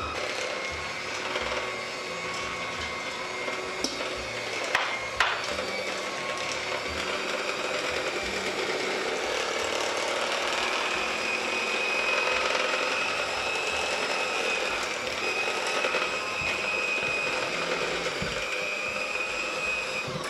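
Electric hand mixer running steadily, its beaters whisking cake batter with milk in a stainless steel bowl, with a few sharp knocks about four to five seconds in. The motor cuts off at the very end.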